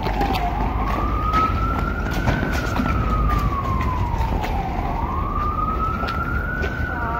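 A wailing siren, its single tone sliding slowly up and down about every five seconds. Faint quick taps of running footsteps on asphalt sound under it.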